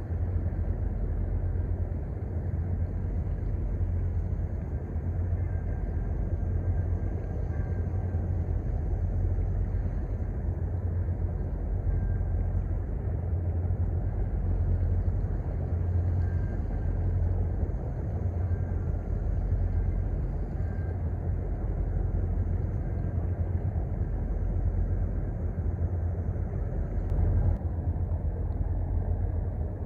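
Steady low rumble of a river cargo ship's engine, with a brief louder knock near the end.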